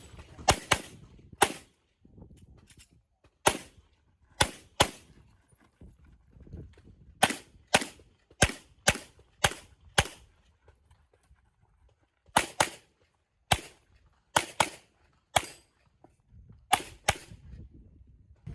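Handgun shots fired on an IPSC stage: about twenty rapid shots, mostly in quick pairs, in several strings with pauses of one to two seconds between them.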